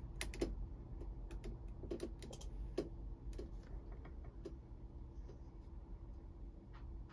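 Quiet, irregular clicks of typing on a computer keyboard, bunched in the first three seconds and thinning out after, over a low steady hum.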